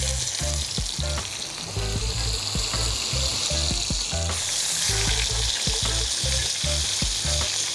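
Pork steaks sizzling in hot oil in a cast-iron saj pan over charcoal. The sizzle grows louder about four seconds in, as a steak is moved in the oil with tongs.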